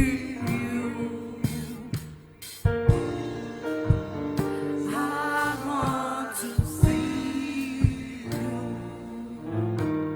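Gospel worship music: singing over sustained chords with steady drum hits.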